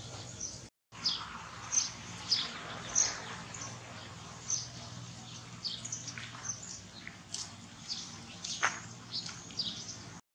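Small birds chirping: short, high chirps repeated every second or so, over a faint steady low hum.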